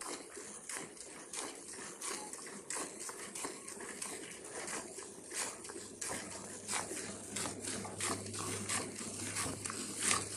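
Hand-milking a Gir cow: squirts of milk from the teats hissing into frothy milk in a metal pail, in an even rhythm of a few squirts a second as the hands alternate.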